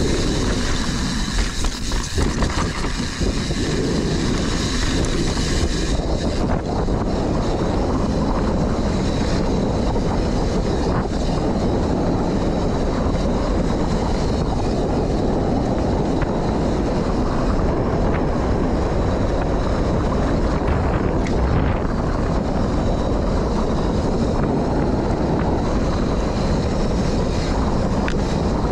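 Mountain bike descending fast on a dirt trail: wind rushing over the microphone and knobby tyres rumbling on the dirt, with the bike knocking and rattling over bumps in the first few seconds.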